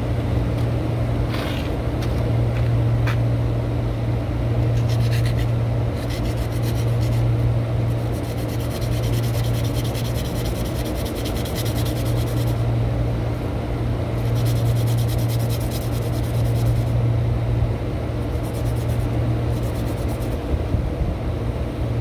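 A steel shaft key being sanded by hand on abrasive cloth to take down a groove worn into it: quick back-and-forth rubbing strokes in several spells. A steady low hum runs underneath.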